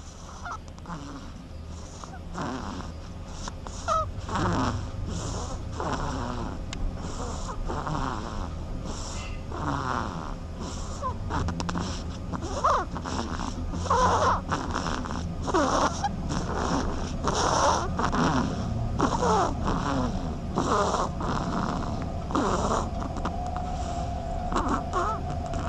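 Sleeping duckling snoring: soft short snore-like sounds repeating about once a second, some with a quick falling pitch.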